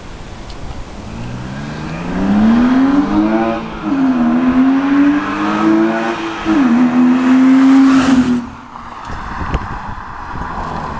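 BMW E36 323i's 2.5-litre inline-six, breathing through an ITG air filter and a Supersport exhaust, accelerating hard with the note climbing steadily. It shifts up twice, the pitch dropping each time, then the sound falls away sharply about eight seconds in.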